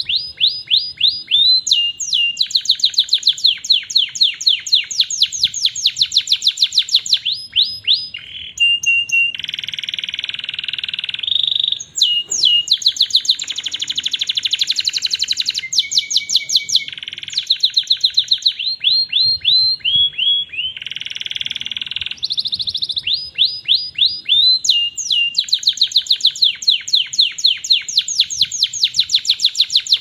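Domestic canary singing continuously: long runs of quick, evenly repeated down-slurred notes alternating with held trills.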